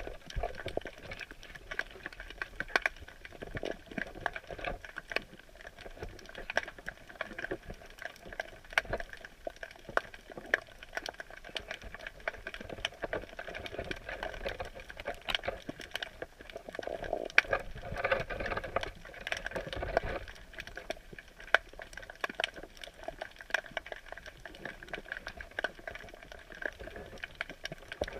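Underwater sound picked up by a camera submerged in a crab net: a dense, continuous crackle of small clicks and pops over a muffled rushing hiss of water.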